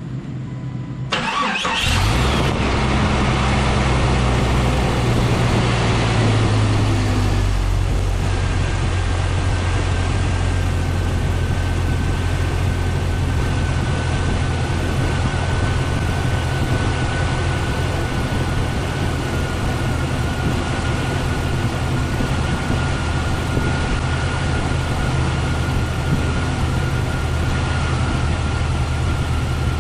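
A 1998 Jeep Cherokee XJ's 4.0-litre inline-six cranks briefly and catches about two seconds in. It runs at a raised idle, then settles about eight seconds in to a steady idle, with a faint steady whine. This is the first start after a new throttle position sensor, idle air control valve and intake air temperature sensor were fitted.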